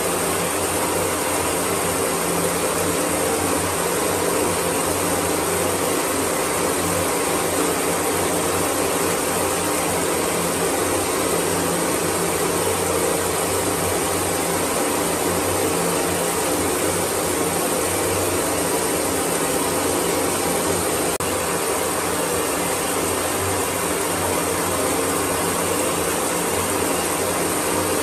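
Water spraying steadily from a handheld shower head: an even, unbroken rush of running water.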